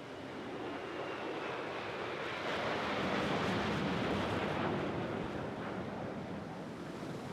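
Rushing sea and wind noise that swells to a peak about halfway through, then eases off.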